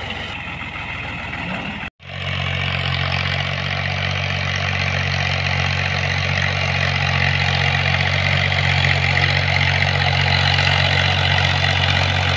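Small Fiat tractor's diesel engine running steadily while it pulls a ridging implement through dry soil. The sound breaks off briefly about two seconds in.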